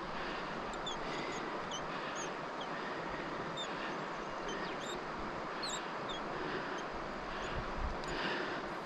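Steady rush of river rapids, with many short, high chirping calls scattered over it and a brief low rumble about seven and a half seconds in.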